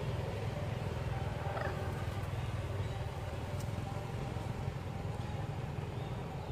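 Steady low rumble of outdoor background noise, with a faint short rising chirp about one and a half seconds in.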